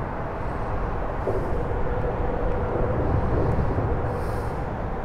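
Steady low rumble of traffic crossing the highway bridge overhead, with a faint steady hum and a slight swell about three seconds in.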